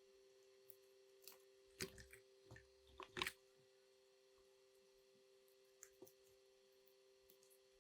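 Faint steady tone of two pitches held together, with a few soft clicks and knocks about two to three seconds in.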